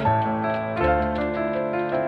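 Background music led by piano, with a bass line under the notes.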